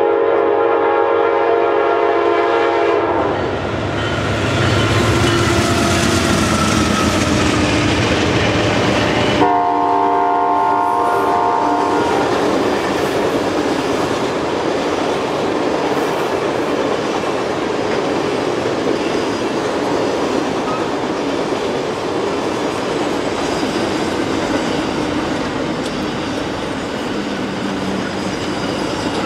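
Horn of Amtrak GE Genesis P42DC locomotives sounding two long blasts, the first right at the start and lasting about three seconds, the second about ten seconds in and lasting about two and a half. Under and after them is the loud, steady rush and clickety-clack of a long passenger and auto-carrier train passing at speed.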